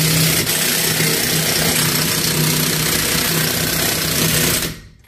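Kobalt 24-volt brushless cordless impact wrench hammering loudly and continuously as it runs lug nuts down on a truck wheel, stopping just before the end.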